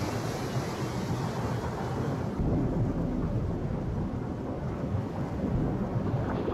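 Deep, continuous rumble, heavier from about two and a half seconds in.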